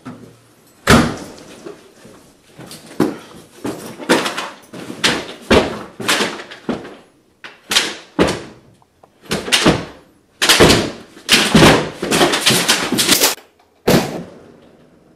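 A door slammed hard, followed by a long run of loud, irregular bangs and thuds, thickest a couple of seconds before the end.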